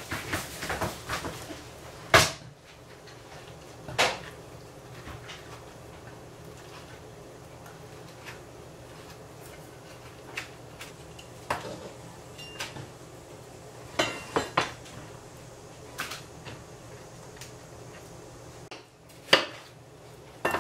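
Kitchen knife knocking against a wooden cutting board as a cantaloupe is cut: sparse sharp taps, about a dozen, with a quick cluster of them about two-thirds of the way through.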